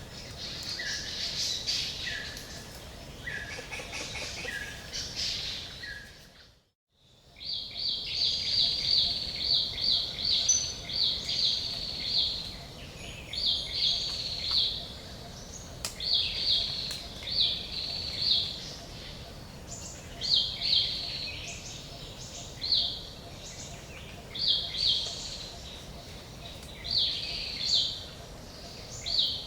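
Forest birdsong: a short, repeated two-note call first, then, after a brief dropout about seven seconds in, a bird repeating short high chirping phrases every second or two over a faint steady background hiss.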